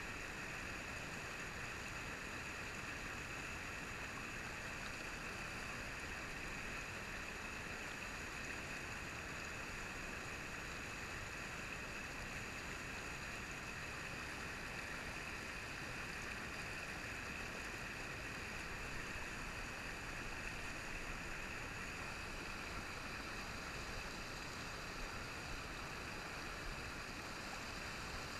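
Trout stream rushing over rocks in riffles and small rapids: a steady, unbroken wash of water.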